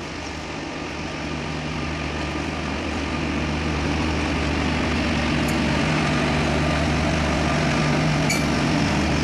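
Indian Railways electric locomotive hauling the Garib Rath Express coaches past at close range: a steady hum and rumble that grows louder over the first few seconds, then holds. Two brief sharp clicks come about halfway through and near the end.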